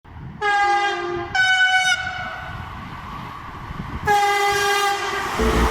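Train horn blasting three times: a first blast that steps down in pitch, a short higher-pitched blast right after, then after a pause of about two seconds a longer steady blast. Music with a bass line starts just at the end.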